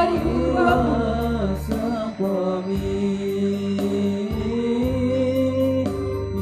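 Male students singing a melodious song in long, gliding held notes over steady, sustained low instrumental notes.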